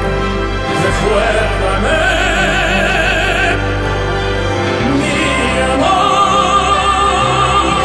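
Slow, sad music in an operatic style: a melody with strong vibrato over sustained accompaniment.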